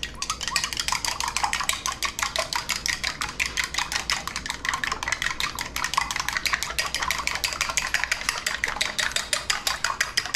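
Chopsticks beating eggs in a small enamel bowl: a fast, steady clatter of the sticks tapping against the bowl, many taps a second.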